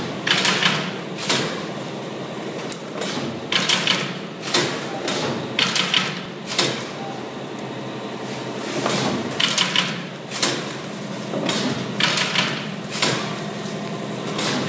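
Semi-automatic carton stitching machine running, its stitching head clacking in quick runs of strokes as it drives wire stitches into corrugated cardboard boxes, over the steady hum of its motor. The runs of clacks come every few seconds.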